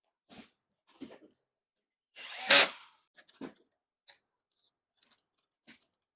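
Electric screwdriver run briefly, about two seconds in, amid small clicks and knocks of copier parts being handled.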